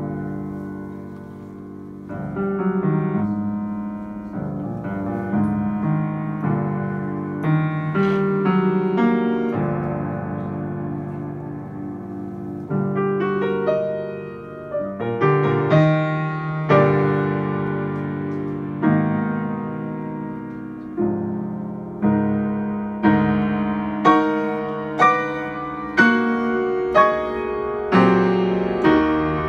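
Grand piano played solo: struck notes and chords that ring and decay. A chord dies away over the first couple of seconds before the playing picks up again, and in the last several seconds loud accented chords land about once a second.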